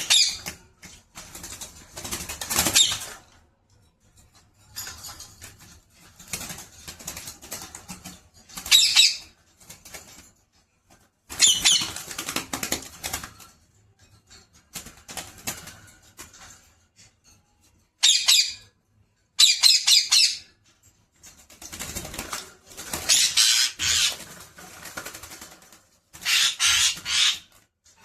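Pet parrot flapping its wings in repeated bouts of a second or two, with short pauses between them.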